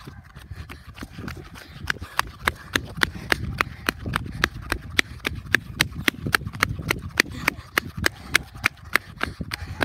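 Running footsteps, shoes slapping on asphalt about three times a second, growing louder about two seconds in, over a low rumble.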